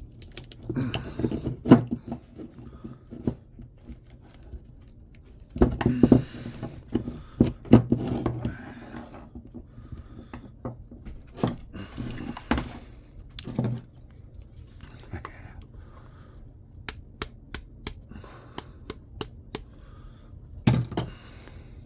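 Hand tools, a screwdriver and wire cutters, prying and cutting copper windings out of an electric motor's stator: irregular metal scrapes, clinks and knocks, with a quick run of sharp clicks near the end.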